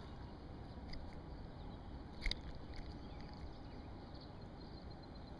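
Low, steady outdoor rumble with a few light ticks and one sharp click a little over two seconds in.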